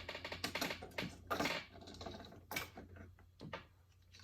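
Small die-cast toy cars and parts clicking and rattling as they are handled and sorted, in a quick run of light clicks with a few sharper knocks later, over a low steady hum.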